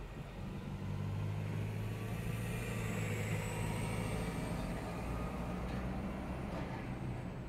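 Coach bus diesel engine running at low speed as the bus turns close by, a steady low drone over general street traffic noise.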